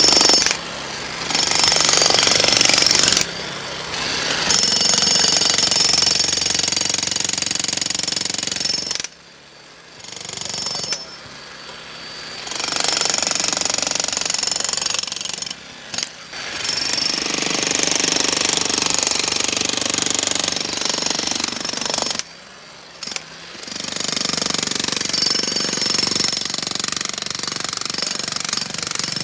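Hand-held jackhammer hammering into thick concrete in long runs, with short pauses about nine seconds in, around fifteen seconds and about twenty-two seconds in.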